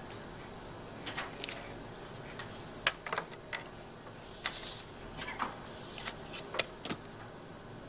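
Paper sliding and rustling twice as a sheet is moved on a drawing table, with scattered small clicks and taps from handling a pen on the desk.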